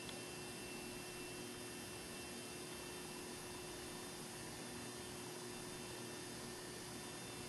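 Quiet steady hiss and electrical hum with a faint thin high whine; no music.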